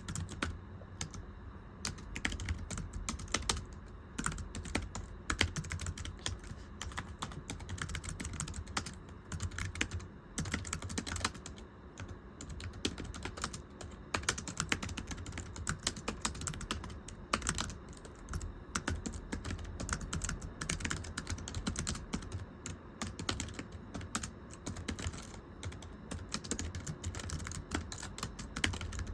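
Continuous typing on a thin, low-profile computer keyboard: a steady rapid stream of light, slapping key taps.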